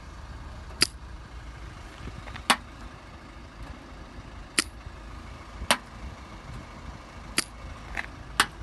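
Pen-type magnetic paint thickness gauge clicking against a car's steel body panel: six sharp clicks at uneven intervals of one to two seconds, one for each paint reading taken along the panel, over a faint low rumble.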